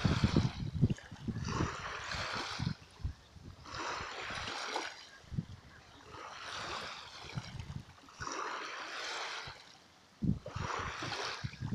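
Small waves lapping at the water's edge, a soft wash that swells and fades about every two seconds. Wind buffets the microphone with low thumps, strongest at the start and again near the end.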